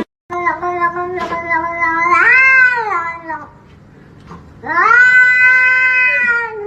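A domestic cat yowling in two long, drawn-out calls. The first rises and falls in pitch near its end; the second starts about a second later, rises, then holds steady.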